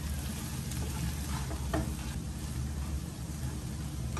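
A wooden spatula stirring sprouted moong and chana in an oiled frying pan, scraping and knocking against the pan a few times in the first couple of seconds, over a light frying sizzle.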